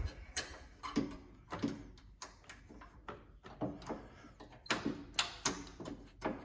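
Irregular small clicks and taps, about two a second, from a hairpin clip being worked onto the riding mower deck's mounting pin.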